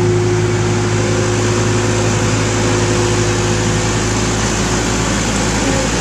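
New Holland skid steer loader's diesel engine running steadily as it drives up and lifts a full bucket of feed over a mixer wagon, with a steady whine over the engine that fades out about five seconds in.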